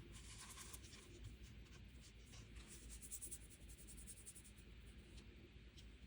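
Faint, irregular scratching and rubbing of hands and tools working fresh metal clay on the bench.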